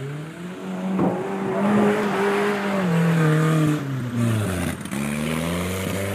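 Land Rover Discovery's engine revving as it drives through slushy mud: the pitch climbs from about a second in and holds high, dips sharply about four and a half seconds in, then picks up again. A rushing hiss sits over the loudest revs in the middle.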